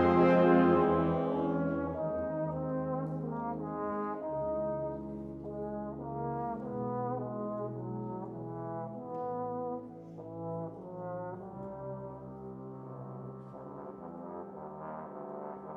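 Solo trombone playing a melodic line of separate notes over sustained chords from a wind band. A loud full-band chord dies away at the start, and the music grows gradually quieter.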